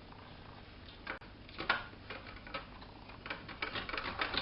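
A block of dark chocolate being grated on a cheese grater: a few separate scraping strokes, then quick, regular strokes starting about three seconds in.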